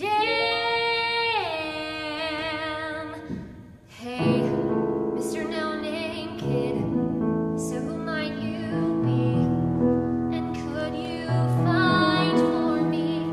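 A woman sings a musical theatre song with grand piano accompaniment. She holds a note that slides down and wavers with vibrato, breaks off briefly about four seconds in, then sings on over the piano.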